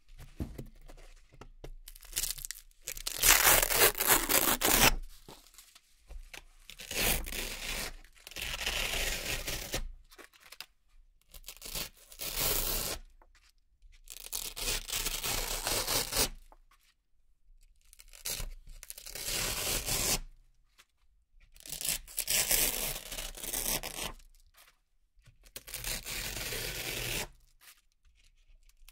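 Velcro (hook-and-loop) circles being peeled one after another off a hook-and-loop board: about eight crisp ripping tears, each lasting one to two seconds, with short quiet pauses between them.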